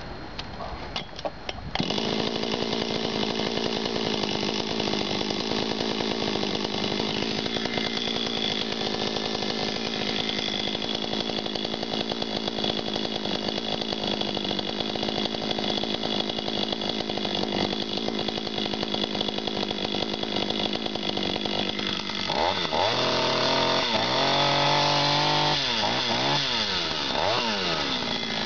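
Jonsereds 520SP two-stroke chainsaw starting up about two seconds in, then idling steadily on the ground. In the last six seconds it is revved up and down several times.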